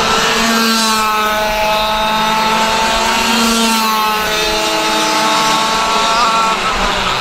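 Racing go-kart engines running hard, with their pitch dropping twice, about a second in and again about four seconds in, over a steady rush of engine and wind noise.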